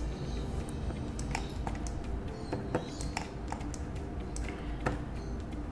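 Scattered, irregular computer mouse clicks, about a dozen, over a low steady hum.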